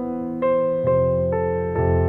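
Soft background piano music, slow notes struck about every half second over a held bass.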